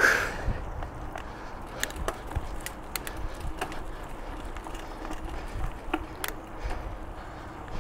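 Mountain bike rolling along a dirt trail: a steady rumble of tyres on the ground with frequent small, irregular clicks and rattles from the bike, and a brief loud rush right at the start.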